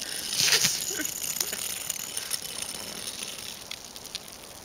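Steps crunching and scraping on icy, crusted snow, as a dog and the people with it move over the frozen surface.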